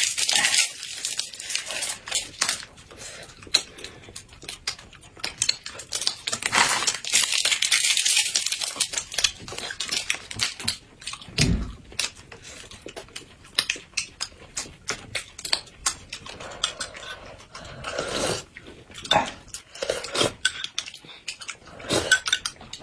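Small plastic snack wrappers crinkling and tearing open, then close-up chewing and mouth clicks. Near the end, spoons clink in glass cups as a drink is sipped.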